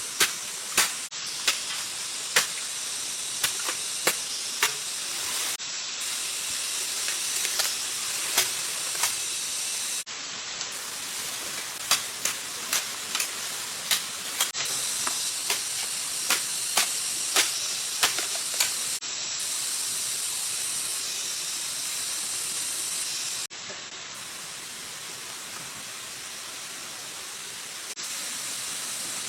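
A steady hissing rush with sharp clicks or snaps about once or twice a second; the clicks thin out in the last third, and the background shifts abruptly every few seconds.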